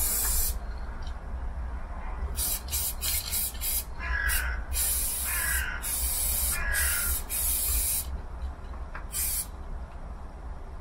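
Aerosol spray paint can hissing in bursts. There is one at the start, then a few quick puffs, then several longer sprays of about a second each, and a last short one near the end.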